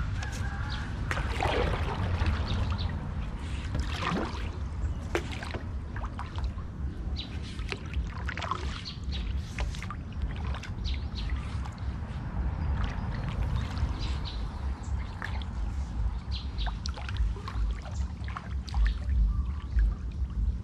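A narrow wooden canoe being paddled through still floodwater: irregular paddle splashes and water knocking against the hull over a steady low rumble, with birds chirping now and then.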